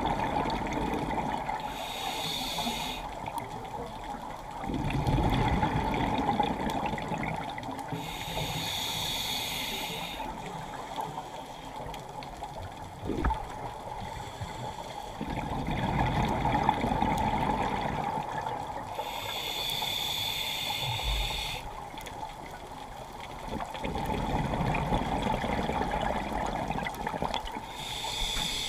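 Scuba diver breathing through a regulator underwater: a short hissing inhale, then a longer low rush of exhaled bubbles, in a slow cycle repeated about three times.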